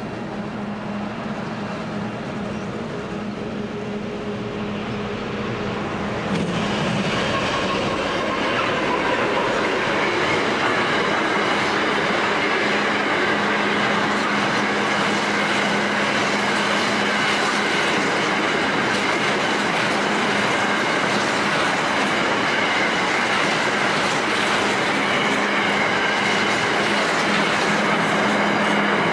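Container freight train passing: wagons rolling along the rails, with clickety-clack and some high wheel squeal over a steady hum. It gets louder about six seconds in and stays steady after that.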